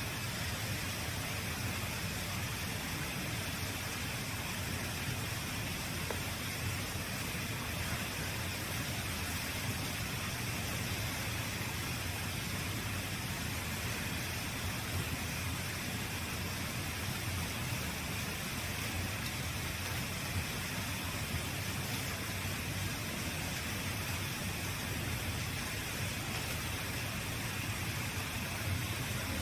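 Steady hiss-like background noise with a low rumble underneath, even throughout with no distinct events.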